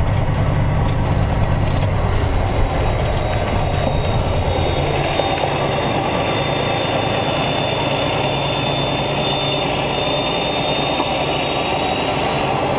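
Kenworth heavy truck's diesel engine running steadily with a low hum, and a thin high whine above it.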